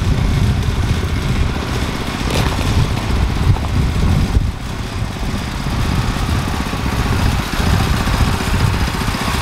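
Go kart's small single-cylinder engine running as the kart drives, its level swelling and easing a little.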